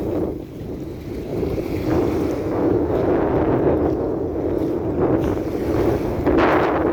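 Wind buffeting the microphone: a rough, fluctuating rumble that grows stronger about two seconds in and gusts again near the end.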